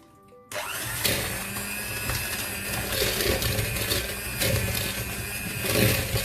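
Electric mixer running, beating cold butter and sugar together for biscuit dough; it switches on suddenly about half a second in and runs steadily.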